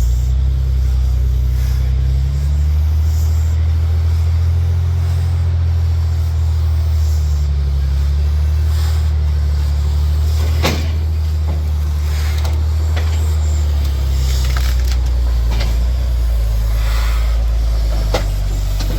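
Small diesel locomotive's engine working under load as it pushes a steam locomotive up a loading ramp. Its note rises a few seconds in and drops back about three quarters through, with a sharp knock just past halfway.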